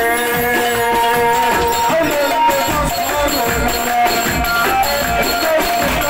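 Egyptian mizmar (folk shawm) band music: reedy held and wavering melody notes over a steady tabla and percussion beat.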